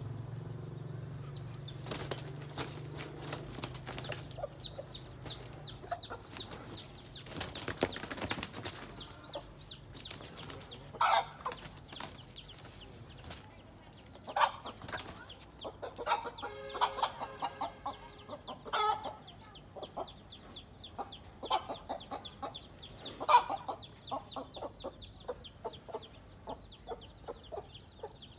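Domestic hen giving loud, spaced alarm squawks and clucks, with bursts of wing flapping, as she fights off a cobra to defend her chicks. The chicks peep throughout in quick, high, falling cheeps.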